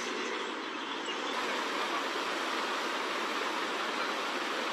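Steady, even rushing noise of storm ambience: wind and flowing floodwater, with no distinct events.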